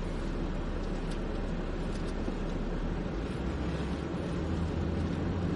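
Car engine and road noise heard from inside the cabin, a steady low hum that shifts up in pitch about three seconds in as the car pulls away from a stop in traffic.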